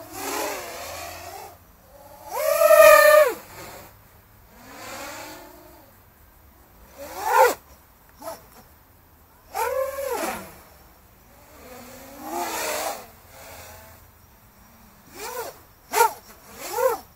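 Quadcopter with T-Motor F80 1900 kV brushless motors on Dalprop 7040 propellers, whining up and then down in pitch with each throttle punch. There are several surges of a second or two, then a run of quicker short blips near the end.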